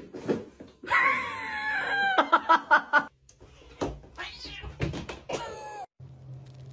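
Cats meowing: one long drawn-out meow that falls in pitch, followed at once by a quick run of shorter calls, then two more separate meows after a short gap.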